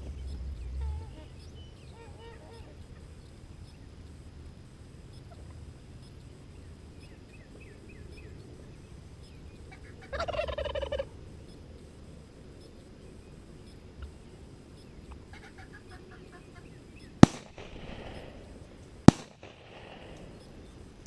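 Wild turkey gobbling loudly about ten seconds in, with softer turkey calls before and after, then two gunshots about two seconds apart that echo, the hunter firing a second shot at the tom.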